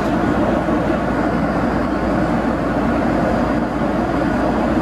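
Steady cabin noise of a Boeing 767-300 in flight: a constant drone of engines and rushing air heard from a passenger seat.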